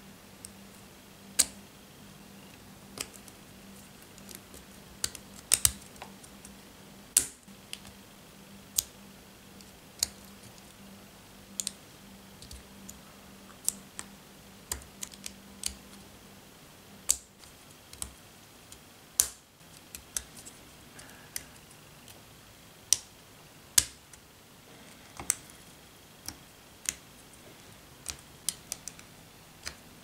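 Lego Technic pieces pressed together by hand: sharp plastic clicks as pins snap into beams and parts, coming irregularly, one every second or two, some much louder than others.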